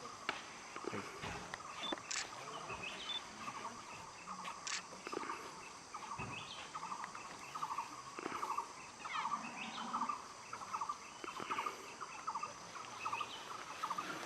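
Wild birds calling: a rapid chattering call repeated in short bursts, more often in the second half, with occasional sharp higher chirps over a steady background hiss.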